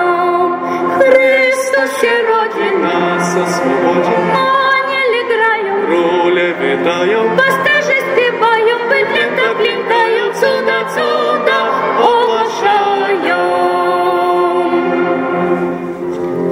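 A woman sings a Polish Christmas carol (kolęda) with vibrato, accompanied by a small string ensemble of violins and cello. Near the end the voice falls away while the strings hold on.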